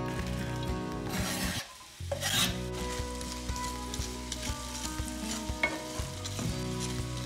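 Sliced onions sizzling in hot oil in a frying pan, flaring up loudly just after they go in about two seconds in, then stirred with a wooden spatula that scrapes and taps against the pan. A steady low hum runs underneath.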